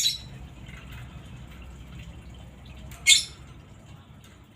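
Lovebird giving two short, shrill squawks: one right at the start and a louder one about three seconds in, with faint low background noise between them.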